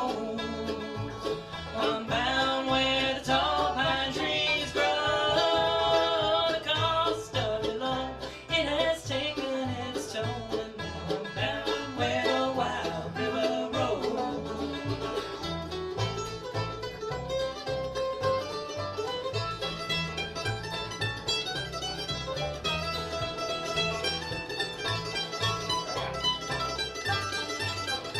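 Bluegrass band playing on Gibson banjo, Gibson guitar, Flatiron mandolin and Kay upright bass. Sung vocals run over roughly the first half, then an instrumental stretch of fast picking follows.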